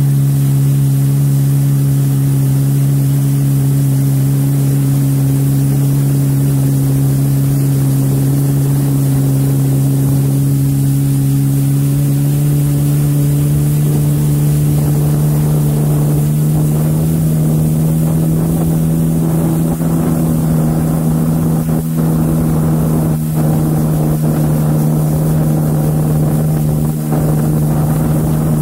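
Personal watercraft (jet ski) engine and jet drive running steadily under way, with a strong even hum. The pitch edges a little higher over the second half as the craft speeds up.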